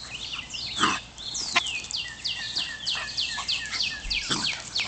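A bird singing a rapid run of high notes, each falling in pitch, about three a second, starting about a second and a half in. A brief louder squeal comes just before, about a second in.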